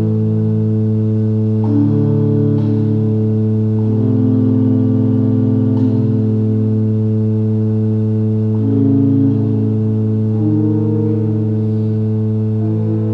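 Ambient drone music: a steady low held note with several held tones above it that shift every few seconds, organ-like.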